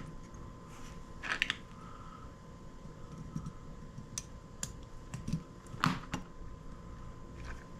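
Scattered light clicks and taps of small parts and tools being handled while soldering wires to micro-switches, over a faint steady tone.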